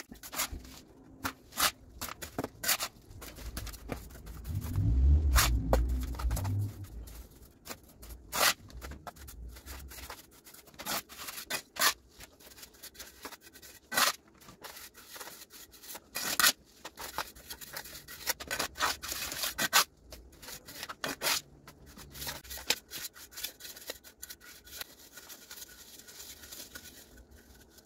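Metal trowel and scoop scraping, tapping and packing cement mortar into a plastic basin, in many short sharp scrapes and taps. A longer low rumble comes about five seconds in.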